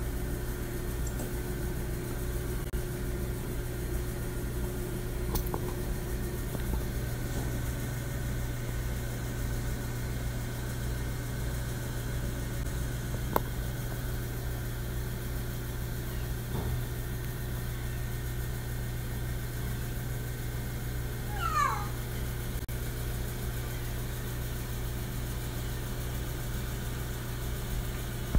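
A steady low hum runs throughout. About three-quarters of the way in, a ring-tailed lemur gives one short meow-like call that falls in pitch. A single sharp click comes near the middle.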